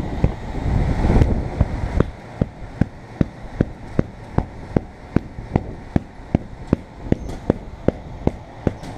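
Low rubbing and handling noise for about two seconds, then a steady, evenly spaced clicking, about five clicks every two seconds, that keeps going to the end.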